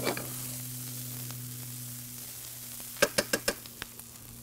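Chopped peanuts and sambal toasting in a frying pan, sizzling softly over a steady low hum. About three seconds in comes a quick run of five or so sharp clicks from a metal spoon knocking against the pan.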